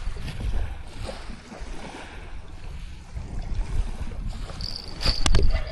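Wind rumbling on the microphone over waves at the shore, with a brief steady high tone near the end and a few sharp clicks of handling just before it ends.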